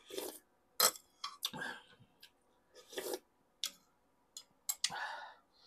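Eating with a metal spoon and fork from a ceramic plate: a string of sharp clinks and scrapes of the utensils on the plate, between short slurps of broth and chewing.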